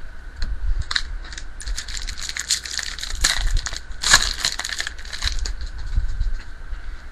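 Foil wrapper of a 2008 Upper Deck Piece of History baseball card pack crinkling in the hands as the pack is torn open, starting about a second in and dying away after about five seconds.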